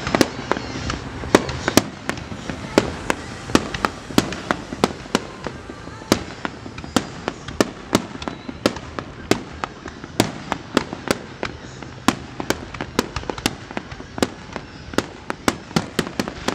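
Aerial firework shells bursting in a rapid, irregular run of sharp bangs, several a second, during a fireworks display.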